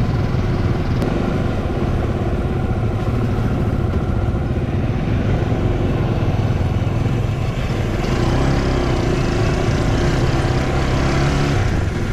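Motorcycle engine running steadily as the bike is ridden, with road noise.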